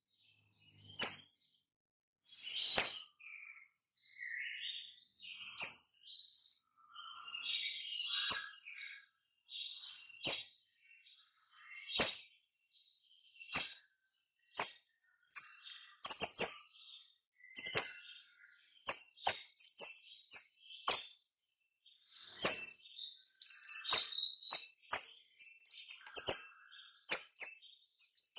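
Caged kemade songbird singing in the rapid-fire 'shooting' style: a string of short, sharp, high notes, about one every second or two at first and coming several a second in the second half. Softer, lower warbling fills the gaps in the first third.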